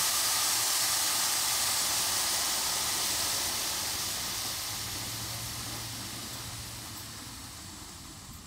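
Steam jetting hard from a 7.5-inch gauge live steam 2-6-0 locomotive, a loud steady hiss that fades gradually toward the end.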